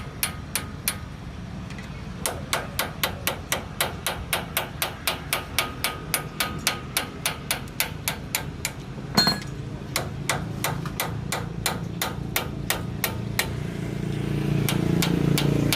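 Steady run of light metal-on-metal hammer strikes, about three a second, tapping the threaded front wheel bearing nut home on an Isuzu D-Max Hi-Lander hub; one harder strike about nine seconds in.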